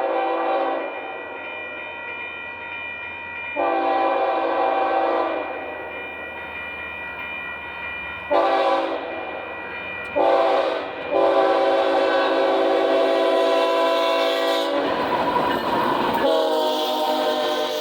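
Union Pacific locomotive's multi-chime air horn sounding a chord in a series of blasts: a short one that stops within the first second, a long one, two short ones, a longer one, and another starting near the end. Just before that last blast a burst of rushing, rumbling noise cuts in for about a second and a half.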